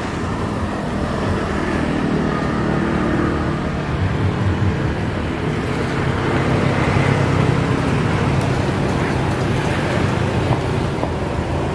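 Steady motor-vehicle engine noise: a continuous low hum and rumble with no distinct events.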